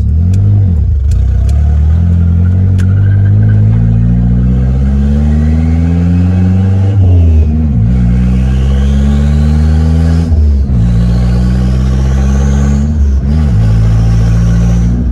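Nissan Hardbody pickup's engine accelerating hard and shifting up through the gears: the revs climb steadily in each gear and drop sharply at each of about four upshifts. A high whine rises with the revs in the second half.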